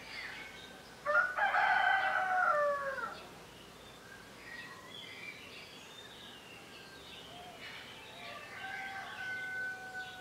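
A rooster crows once, about a second in: a loud call of some two seconds that drops in pitch at its end. Small songbirds chirp throughout, and a fainter drawn-out call sounds near the end.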